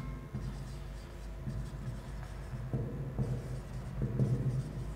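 Marker pen writing on a whiteboard, scratching in short, irregular strokes.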